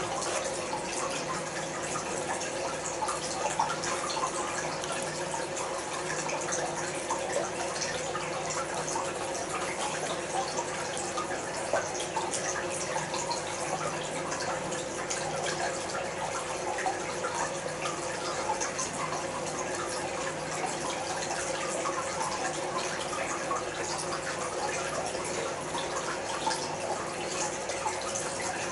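A steady rushing background noise with a faint low hum, sounding like running water, with small faint clicks scattered through it.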